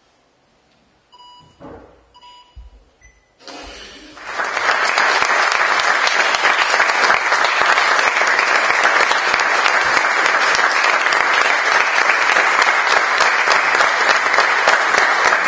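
Theatre audience breaking into applause about four seconds in, after a quiet start, and clapping steadily and loudly from then on.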